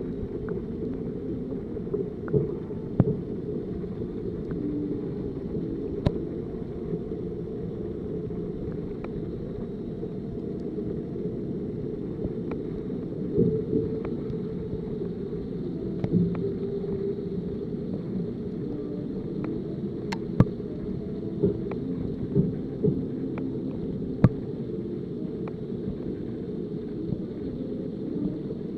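Muffled underwater rumble of pond water heard from a submerged camera, steady and low, broken by scattered sharp clicks and knocks.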